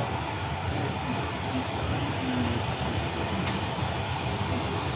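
Steady machinery noise of a Boeing 777 on the ground with its systems running, heard inside the flight deck, with a single sharp click about three and a half seconds in.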